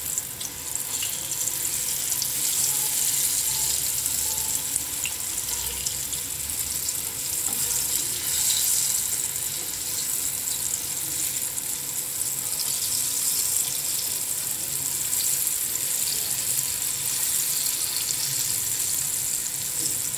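Chana dal dhoka pieces shallow-frying in hot oil in a nonstick pan: a steady sizzle with fine crackles of spattering oil.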